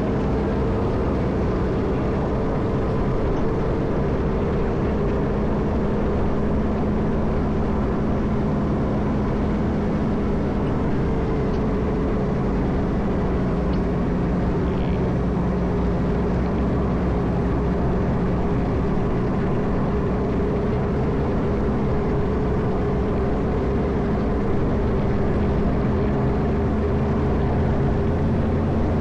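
Caterpillar 140M motor grader's diesel engine running steadily under load while plowing snow, at an even pitch.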